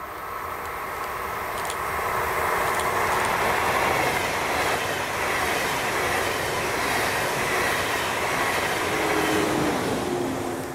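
A train passing on the track, a steady, even rush of wheel and rail noise with a few faint held tones. Near the end a low tone slides slightly down.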